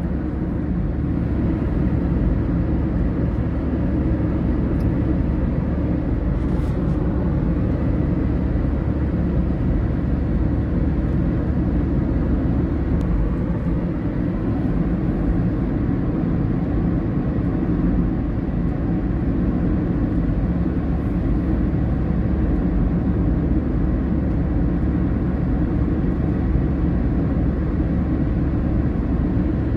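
Steady road and engine noise inside a car cruising on a motorway: a constant low rumble of tyres and engine that holds even throughout.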